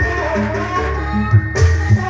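Live Javanese jaranan ensemble music for the pegon dance: sustained pitched notes under a wavering melody line in the first second. Deep drum beats come in during the second half.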